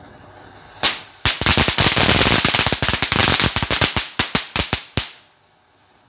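Firecrackers going off: a single crack, then a rapid volley of sharp cracks lasting about four seconds that thins out into a few last pops.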